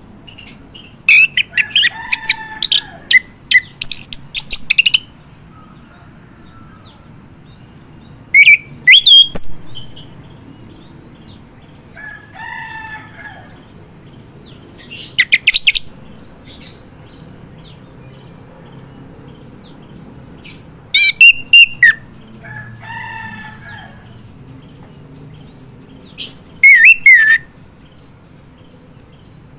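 Male chestnut-capped thrush singing loudly in full song: bursts of rapid, varied whistled and chattering notes, a long phrase at the start, then shorter phrases every few seconds with pauses between.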